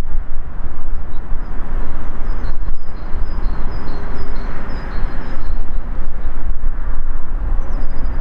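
Steady rumbling of a freight train hauled by a DB Class 152 electric locomotive rolling slowly into a rail yard, under a heavy, fluctuating low rumble. Faint short high chirps repeat throughout.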